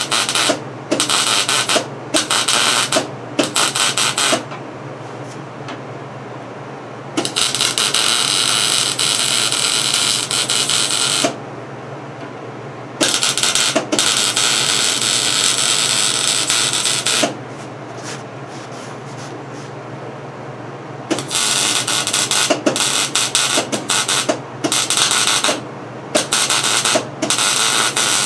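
Welding arc crackling in stitch-weld runs of a few seconds each, some broken into short bursts, with pauses between them. The short stitches are laid on a square hay baler rail so the heat does not pull it out of line. A steady low hum continues through the pauses.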